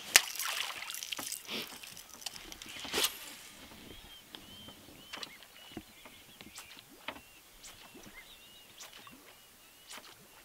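A lure cast from a baitcasting rod: a sharp crack just after the cast, then high whirring and clicking as line runs off the reel. A splash-like crack comes about three seconds in, as the lure lands. After that there is a string of short, high, arched chirps from small animals, mixed with scattered light clicks.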